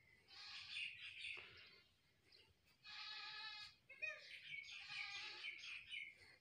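Faint, indistinct calls: short pitched bleat-like cries about three seconds in and again from four to six seconds, mixed with a murmur of voices.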